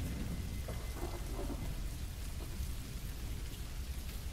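Quiet, steady rain with a low thunder rumble.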